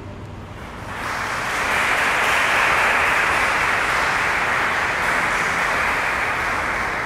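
Audience applauding after a cello ensemble ends its piece: the last low note dies away, then the clapping swells in about a second in and slowly tapers off near the end.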